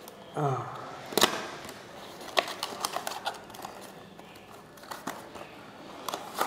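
Cardboard thermometer box being opened by hand: the tuck flap is worked free and the inner tray slid out. This gives scattered clicks, taps and scrapes of card. A brief vocal sound comes about half a second in.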